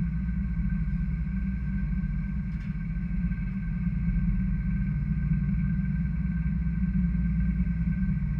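Fishing boat's engine running steadily at sea: a loud low drone with a steady high-pitched hum over it.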